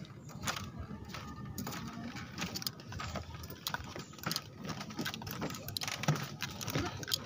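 Footsteps of people in flip-flops on a bamboo-slat footbridge: irregular clacks and knocks of the loose bamboo slats underfoot, several a second.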